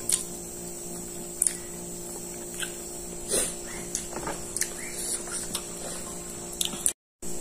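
Quiet eating at a table: scattered light clicks and mouth smacks as rice is eaten by hand from plates, over a steady electrical hum. The sound cuts out completely for a moment near the end.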